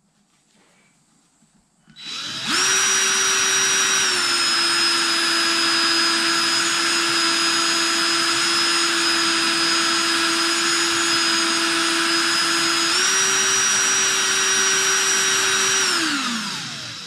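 DeWalt cordless drill spinning a brass cartridge case in a case holder while a cloth is held against it to wipe off polish. The motor starts with a steady whine about two seconds in, drops slightly in pitch a couple of seconds later, rises back near the end, then winds down.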